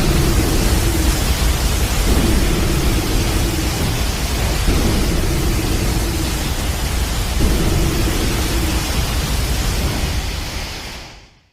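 A sound effect of a loud, continuous roaring rush of noise that fades out near the end, with a faint low hum coming and going under it.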